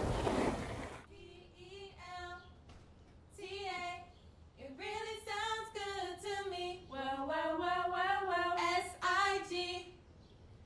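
A woman singing unaccompanied: a few short phrases, then longer held notes that slide between pitches.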